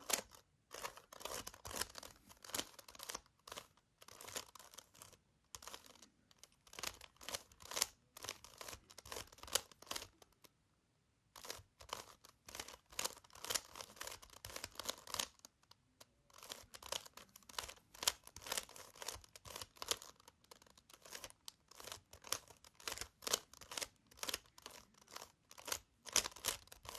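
A 3x3 Rubik's cube turned quickly by hand: a dense run of plastic clicks and scrapes as the layers turn, with short pauses about ten and sixteen seconds in. The turns repeat an algorithm over and over to rearrange the cube's pieces.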